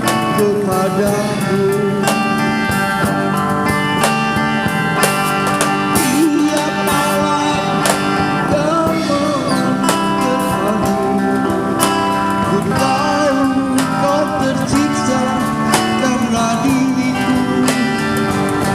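Live band playing a slow Indonesian pop ballad, with guitars picked and strummed under a wavering lead melody.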